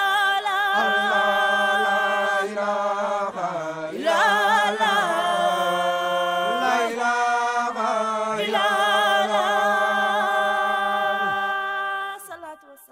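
Group of voices singing an a cappella Islamic devotional chant, an ornamented wavering melody over a steady held low note, fading out near the end.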